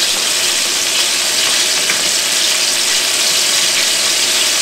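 Flour-dredged chicken wings and tenders deep-frying in very hot oil in a skillet: a steady, continuous sizzle.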